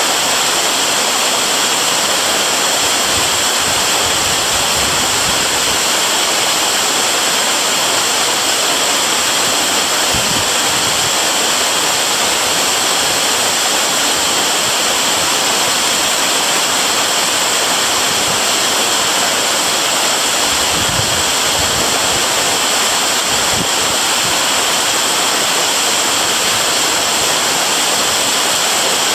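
Waterfall: water falling and splashing in a steady, loud rush.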